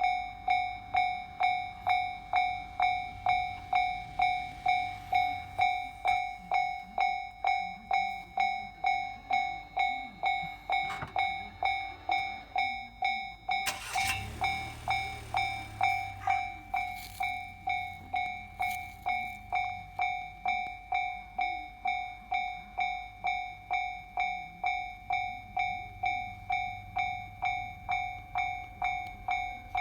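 Japanese level-crossing alarm ringing, a steady electronic clang about twice a second that starts abruptly. About halfway through, the rumble and wheel clicks of an E231-series electric commuter train passing the crossing join in under the bell.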